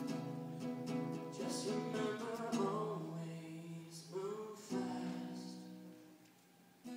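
A live acoustic song: a voice singing held, wavering notes over a strummed acoustic guitar. The music dies away briefly near the end, then comes back in.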